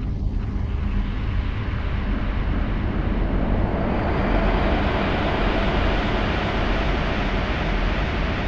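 Dark ambient drone: a deep, steady rumble under a wash of hissing noise that grows louder and brighter over the first four seconds, then holds.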